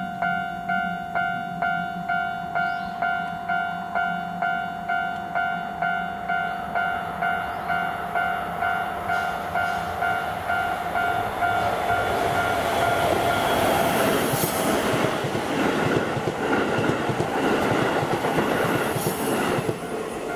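Keisei 3000-series electric commuter train approaching and passing, its running noise and wheels on the rails building from about halfway and loudest near the end. Under it, a level-crossing warning bell dings steadily and evenly until the train noise drowns it.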